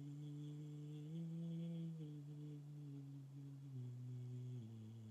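Man's voice quietly singing a slow vocal warm-up scale on low sustained notes, stepping up note by note and then back down, each note held about a second.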